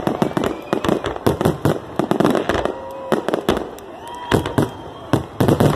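Fireworks finale: a rapid volley of aerial shell bursts, bangs and crackles overlapping thickly for the first few seconds, then fewer but loud bangs near the end.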